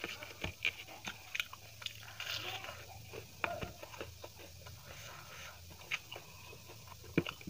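Close-up eating sounds: fingers squishing and mixing chicken biryani rice and gravy on a plate, and chewing, with many short wet clicks.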